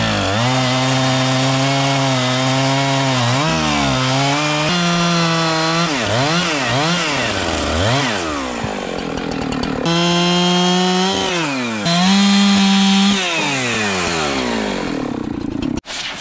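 Chainsaw running, its throttle blipped so the engine pitch swings quickly up and down again and again between steadier stretches at high speed. Its speed and loudness jump abruptly a few times, and it cuts out briefly near the end.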